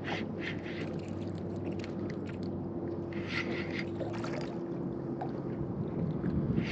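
Spinning reel worked against a hooked fish: short hissy bursts come irregularly a couple of times a second over a steady low hum.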